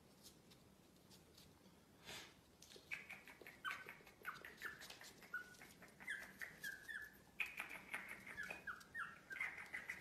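A puppy whimpering in a rapid run of short, high squeaks that fall in pitch, starting about three seconds in after a brief soft rustle.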